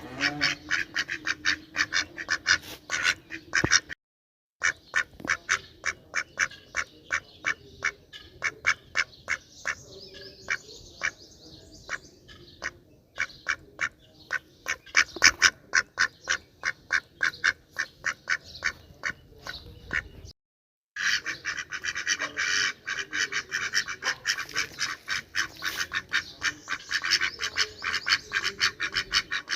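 Domestic ducks quacking in rapid, repeated calls, several a second. The sound cuts out briefly twice, and the calling is densest over the last third, with many calls overlapping.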